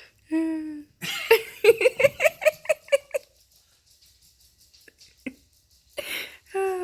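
A person laughing: a short held vocal sound, then a run of quick high-pitched 'ha' pulses lasting about two seconds, and a breath and another short vocal sound near the end.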